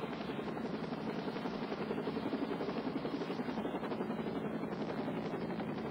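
Air ambulance helicopter flying low, its rotor beating with a rapid, steady chop.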